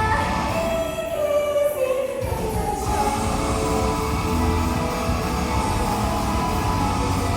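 Idol-group pop song with singing; the bass and beat drop out for about a second near the start, then come back in.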